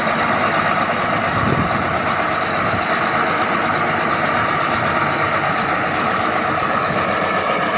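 Bulldozer's diesel engine running steadily while working.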